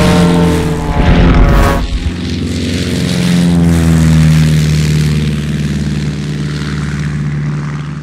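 Designed sound effect of a propeller airplane in a film mix: engine drone and propeller whir layered with a whoosh and metal shaking, the propeller built with a Doppler plugin. The pitch slides down through the first two seconds, then the engine tone settles and holds steady.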